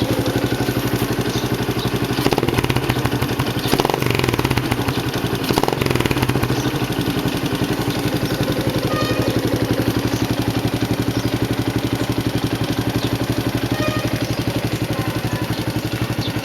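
Yamaha T135's 135 cc single-cylinder four-stroke engine idling through a Nob1 tri-oval SS aftermarket muffler, with a few short throttle blips in the first six seconds before it settles back to a steady idle.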